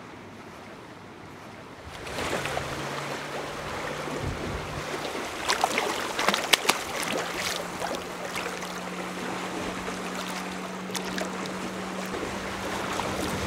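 Water sloshing and splashing as a zander thrashes at the surface beside a boat, with a cluster of sharp splashes about halfway through. A steady low hum runs underneath.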